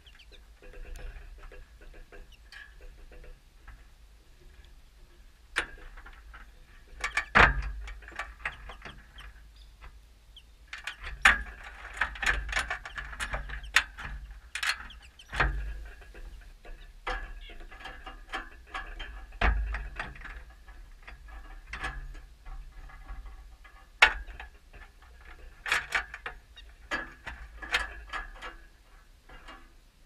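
Irregular sharp clicks and taps, with a few louder knocks, from small feeder birds such as American goldfinches landing on and pecking at a wire-mesh tube seed feeder, picked up close by a camera mounted on the next feeder.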